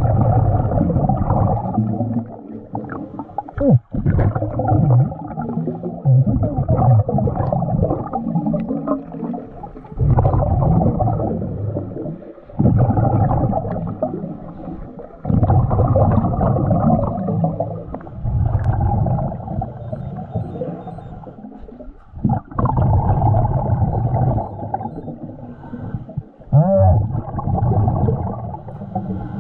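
Scuba diver breathing through a regulator, heard underwater: a loud rumbling burst of exhaled bubbles every few seconds, with quieter gaps between breaths.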